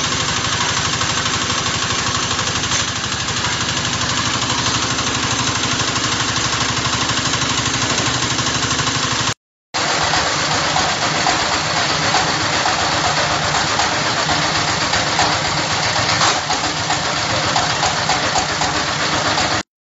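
Diesel engine of a portable water well drilling rig running steadily with a fast, even chugging. The sound cuts out abruptly for a moment about nine seconds in and again just before the end.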